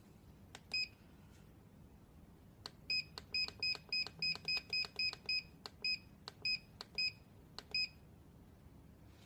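A series of button clicks on the control panel of a battery-powered welding machine, most followed by a short electronic beep. There is one near the start, then about a dozen in quick succession, a few a second, as the settings are stepped through.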